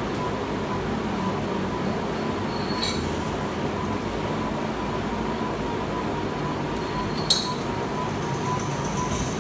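Steady rushing background noise with a thin steady tone, and two short metallic clinks about four seconds apart, the second louder, fitting gymnastic rings and their strap buckles knocking during muscle-ups.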